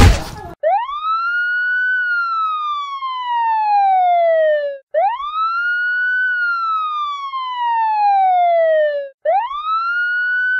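Wailing siren, a clean sound effect with no background: each wail rises quickly, then slides slowly down, three times about four seconds apart. It follows a loud noisy moment that cuts off abruptly in the first half-second.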